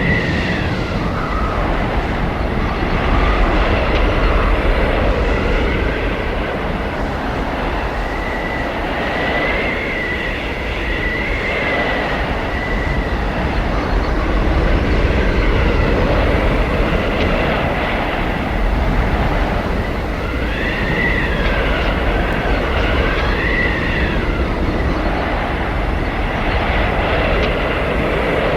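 Arctic blizzard wind: a steady roar of gusting wind with high whistling howls that rise and fall, most noticeably a third of the way in and again about three quarters through.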